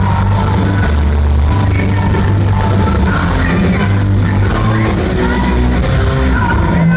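A heavy metal band playing live and loud, with heavy bass, electric guitars and drums under a woman singing.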